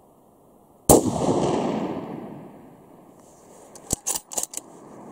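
A single rifle shot from a Ruger Precision Rifle in 6.5 Creedmoor with a Terminator T2B muzzle brake, a sharp crack about a second in followed by a long echo that dies away over about a second and a half. About three seconds later comes a quick run of four sharp clicks.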